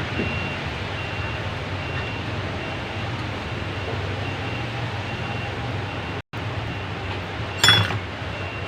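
Steady low hum of workshop or street background with a faint, repeating high-pitched beep, and one short, loud clatter about a second before the end.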